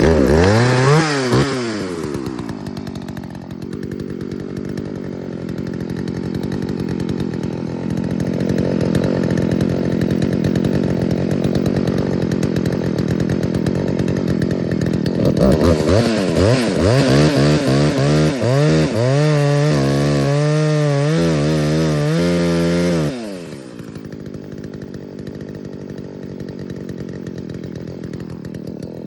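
Chainsaw starting and revving up at once, then running at high speed for a long stretch. From about 16 s it revs up and down repeatedly, drops to a lower idle around 23 s, and cuts off at the very end.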